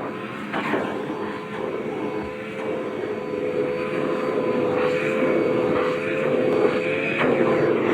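Dirt Devil vacuum cleaner running steadily, its motor giving a whining hum, with a few brief clatters of debris being sucked up.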